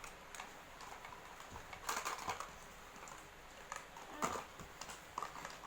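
Irregular taps, clicks and rustles of things being handled, as when boxes and their contents are opened, with a louder cluster about two seconds in and another just past four seconds.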